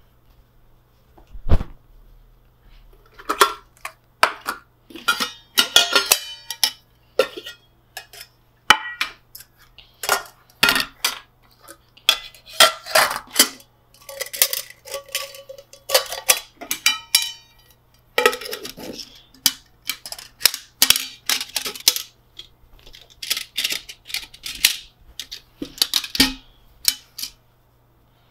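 Stainless steel nesting camping pots and bowls clinking and clattering as they are taken apart and stacked together, with a heavier knock about a second and a half in and a brief metallic ring around the middle.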